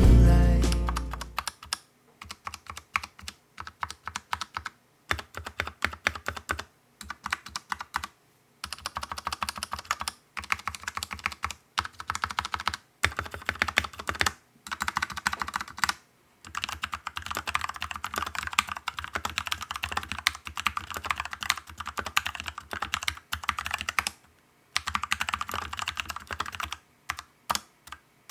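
Typing on a 68-key mechanical keyboard with Huano brown tactile switches that have been quick-lubed and fitted with replacement keycaps: rapid runs of keystrokes broken by short pauses. Background music fades out in the first second or so.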